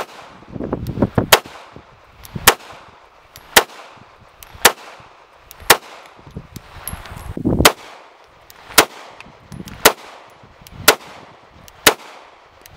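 A compact all-steel CZ blowback pistol firing about ten shots in slow, steady fire, roughly one a second. There is one longer pause near the middle, and each report rings out briefly.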